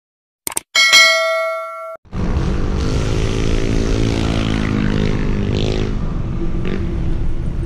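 A click of a subscribe-button animation followed by a bell-like notification ding ringing for about a second. From about two seconds in, wind buffets the microphone over steady road and traffic noise while riding along the street.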